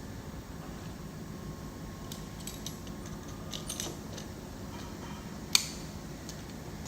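Pliers clicking and scraping on a metal valve stem as it is tightened into the actuator housing: a few small clicks, then one sharp, louder click partway through.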